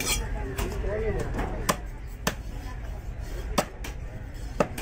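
Heavy curved fish-cutting knife chopping into a small shark on a wooden chopping block: four sharp chops at uneven intervals, with voices talking in the background.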